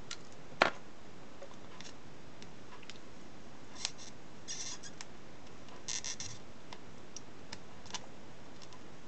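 Flux sizzling and crackling in two short spurts under a soldering iron tip, about four and a half and six seconds in, as burnt SMD resistors are desoldered from an electric shaver's circuit board. Small scattered clicks and taps come from the iron and the plastic housing, with one sharper click near the start.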